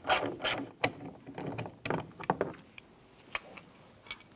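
Irregular clicks and light clatter of hand tools and the loosened plastic exterior door handle being handled, mostly in the first two and a half seconds, then a few scattered ticks.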